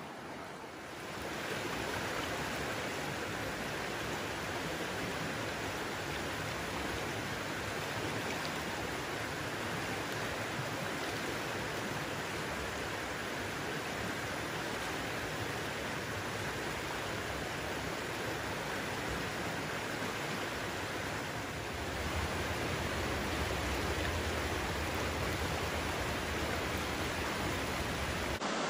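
Steady rush of fast-flowing river water from the Raven Fork. A low rumble joins in about three-quarters of the way through.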